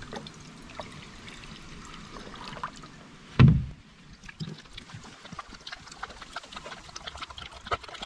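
Water running from the tap of a plastic jerrycan into a dog bowl for about three seconds, then a single thump. After that comes a dog lapping water from the bowl, a string of quick small clicks.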